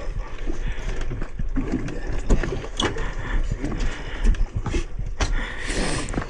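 Wind rumbling on the microphone of a small boat at sea, with several sharp knocks from handling of the fishing rod and gear, and a brief hissing rush near the end.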